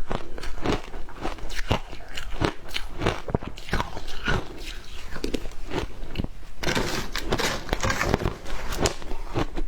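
Close-up crunching of frozen matcha ice being bitten and chewed: irregular sharp cracks, growing into a denser run of crunching about seven seconds in.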